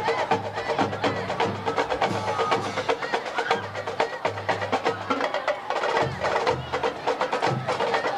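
Marching band percussion playing a steady rhythmic beat: many sharp clicking stick hits over a pulsing low drum.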